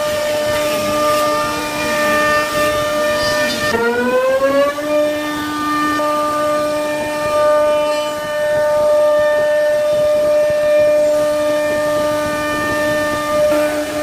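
Spindle of a 1325 CNC router whining at a steady high pitch while its bit cuts into a wooden door, over the rough noise of the wood being milled. About four seconds in the pitch rises briefly, then holds steady again.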